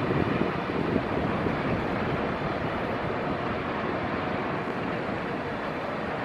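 Steady rushing of wind on the microphone, with a stronger gust in the first second.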